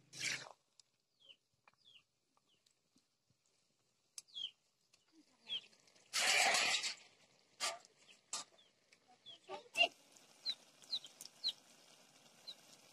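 Chickens: short, high chirps falling in pitch come every second or so, with one louder, rough call lasting about a second around six seconds in.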